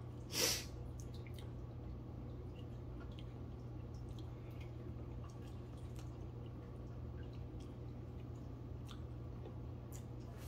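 One short, sharp breath about half a second in, from a man eating spicy food, then faint small clicks and taps of food and packaging being handled over a low steady hum.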